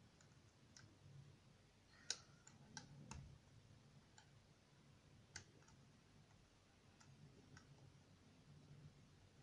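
Faint, scattered clicks and ticks of a lock pick and tension wrench working the pins inside a Gege six-pin euro cylinder, the sharpest about two seconds in.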